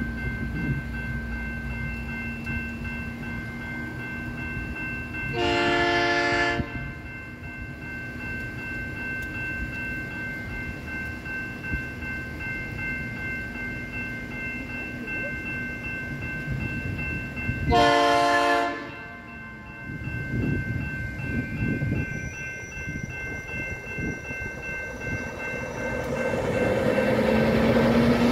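Diesel freight locomotive's multi-chime air horn sounding two blasts about twelve seconds apart, each about a second long, over the steady rumble of the moving train. A broad rushing noise builds near the end.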